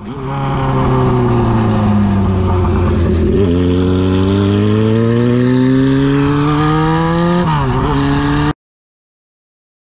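Honda CB750 Four's air-cooled inline-four engine running on the road. Its pitch sags for the first few seconds, then climbs steadily, with a brief jolt about three and a half seconds in and a short dip near eight seconds. The sound cuts off abruptly about eight and a half seconds in.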